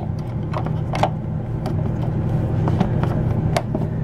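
Short plastic clicks and taps, several across a few seconds, as the spring cartridge of a Dometic manual toilet is pushed and worked onto its flush-valve shaft, not yet seating all the way. Under them runs a steady low mechanical hum.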